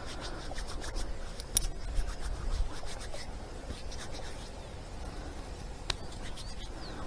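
Fingers rubbing and scratching soil off a freshly dug old coin: a run of faint scrapes, with one sharp click near the end.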